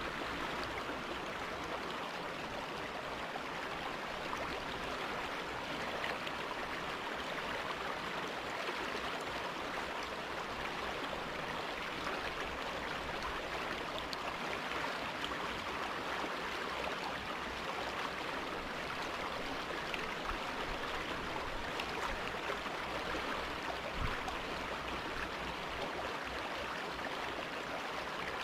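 River water rushing steadily over rocks: the North Fork of the Nooksack, a fast mountain river.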